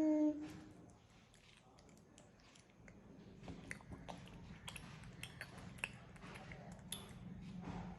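A person chewing chicken biryani close to the microphone: soft, wet mouth clicks and smacks come several times a second from about three seconds in, after a quiet start.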